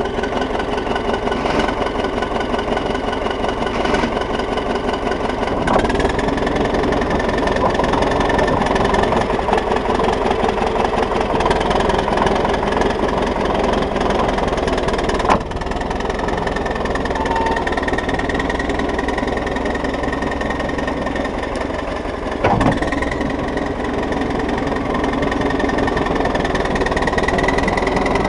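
Diesel engine of a T-170 crawler bulldozer running steadily after a repair. Its whine steps up in pitch about six seconds in, and two sharp clunks stand out partway through and about two-thirds of the way through.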